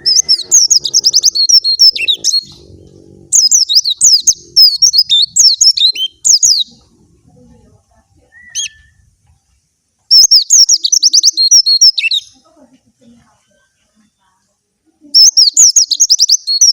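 Young white-eye (pleci) singing loud, rapid, high twittering phrases in four bursts of two to three seconds each, with one short whistled note in a pause midway.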